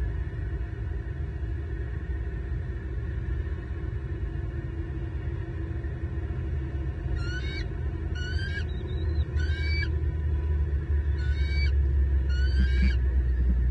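Adult female bald eagle calling: five short, high, rising chirping calls in the second half, over a steady low rumble.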